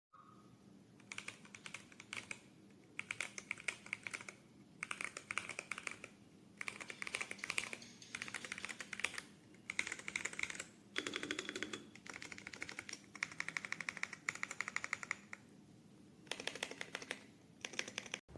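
Typing on a mechanical keyboard fitted with Akko V3 Cream Pro switches: runs of rapid keystrokes about a second long, broken by short pauses, over and over.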